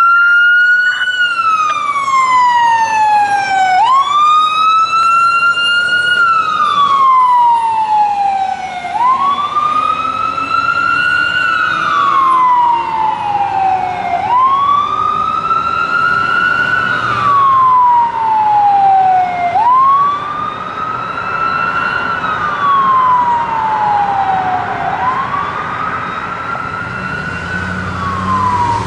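Fire engine's siren wailing in slow cycles, about six of them, each rising quickly and then falling away over several seconds. The siren grows fainter as the engine drives off.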